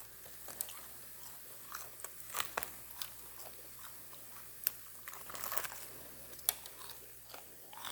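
Crunching of a crispy deep-fried chicken wing being bitten and chewed close to the microphone: a string of sharp, scattered crackles, with the loudest single crunches about two and a half seconds in, near the middle and about six and a half seconds in.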